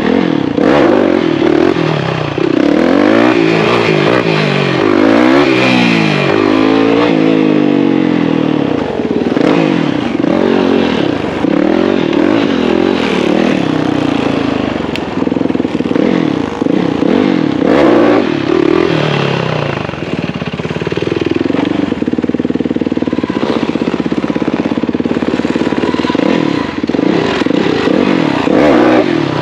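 Motorcycle engines revving while riding, their pitch rising and falling again and again, with several engine notes crossing one another; the engine note holds steadier in the last third.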